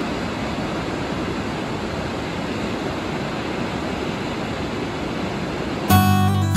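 Steady rushing of water, an even noise with no engine heard. Acoustic guitar music comes in near the end.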